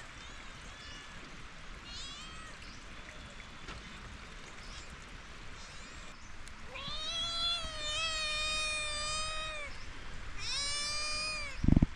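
An animal calling: a few faint short calls in the first few seconds, then a loud, long drawn-out call of about three seconds starting about seven seconds in, and a shorter one near the end. A thump just before the end.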